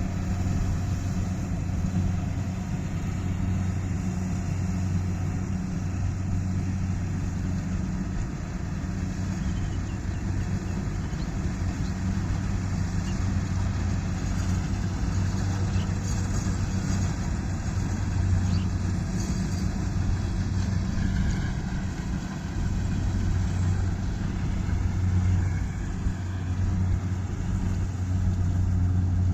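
Kubota rice combine harvester running steadily: an unbroken low engine drone.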